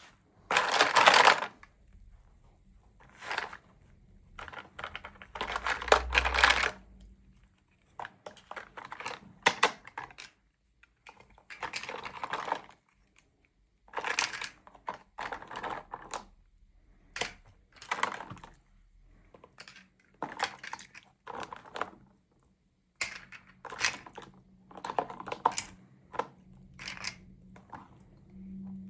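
Plastic toy packaging being handled and opened: stop-start bursts of crinkling and rustling, with light clicks and taps in between.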